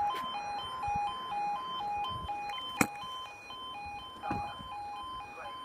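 UK level crossing audible warning: a two-tone alarm switching steadily back and forth between a lower and a higher note, about two cycles a second, signalling that a train is approaching and the barriers are about to come down. A single sharp click about three seconds in.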